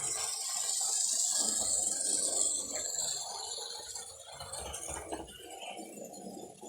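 HO scale model train running on the track, with an irregular rattling and clicking of wheels and cars and a high hiss that fades after about three seconds.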